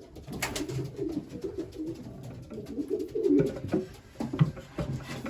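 Racing pigeons cooing in the loft, several low, rolling coos overlapping one another, with a few light knocks among them.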